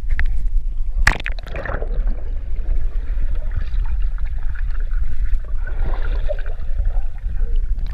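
Swimming-pool water heard muffled from a camera held underwater. A splash comes about a second in, followed by churning water and bubbles over a steady low rumble.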